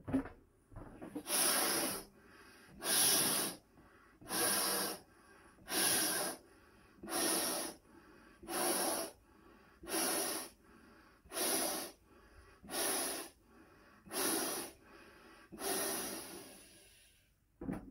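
A 14-inch Tuftex latex balloon being blown up by mouth: about a dozen strong breaths are blown into it, roughly one every second and a half, with short quiet pauses between them. The last breath, near the end, is longer.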